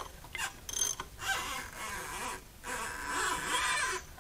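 Nissan SR20DET engine being turned over by hand with a ratchet, its valve cover off, in several strokes. Each stroke brings a squeal that rises and falls from the valvetrain. It sounds pretty bad, and it comes while the owner is concerned about a lack of timing-chain tension between the intake and exhaust cams.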